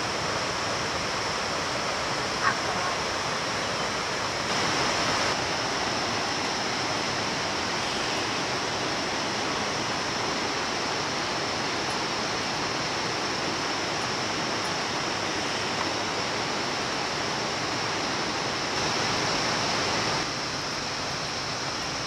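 Steady rush of a stream running over rocks.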